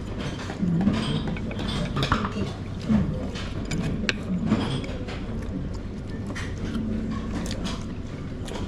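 Busy sushi restaurant ambience: scattered clinks and knocks of dishes and utensils, with faint voices in the background.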